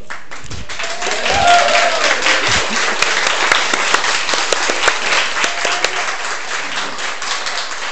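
Audience applauding, the clapping swelling about a second in.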